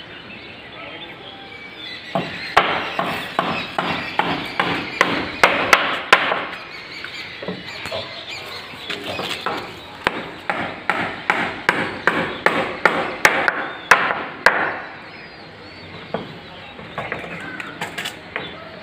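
A run of rapid, regular knocks like chopping or hammering, about two to three strikes a second, starting about two seconds in and stopping a few seconds before the end.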